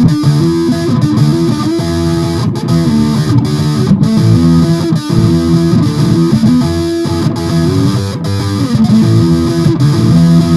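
Distorted electric guitar music with a steady rhythm, loud throughout.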